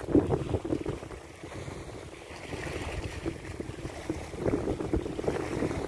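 Wind blowing across the microphone: a low, rumbling rush that rises and falls in gusts.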